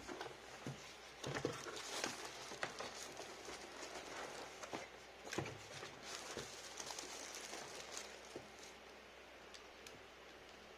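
Hands handling packaging: rustling and crinkling with irregular taps and clicks, which die away about nine seconds in.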